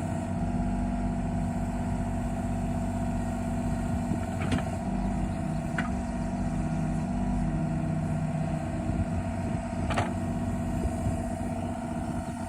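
Mini excavator engine running steadily at a constant pitch while digging, with three brief clanks: two close together near the middle and one later.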